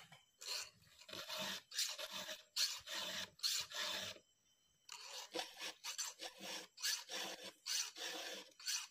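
Hand file rasping across the cutter teeth of a Stihl chainsaw's ripping chain: sharpening the chain. Short scraping strokes come two to three a second, with a brief pause about four seconds in.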